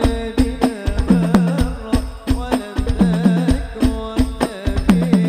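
Hadrah ensemble playing: a steady groove of hand-drum slaps over deep bass-drum strokes whose pitch drops right after each hit.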